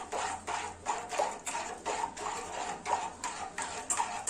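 A utensil stirring lemon cream in a saucepan, clinking and scraping against the pot at about three strokes a second as the custard thickens.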